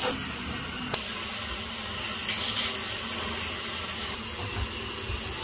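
Shower running: water spraying steadily from a handheld shower head and splashing in a shower stall, with one short click about a second in.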